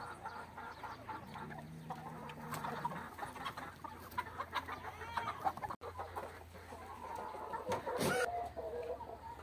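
Flock of chickens clucking, many short calls overlapping.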